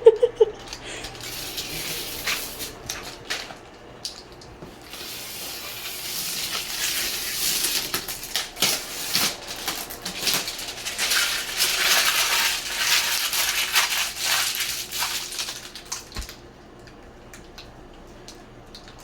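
Packaging from a 70-inch TV being handled during unboxing: crinkly rustling with scattered clicks and knocks. It is strongest from about five seconds in and dies down at about sixteen seconds.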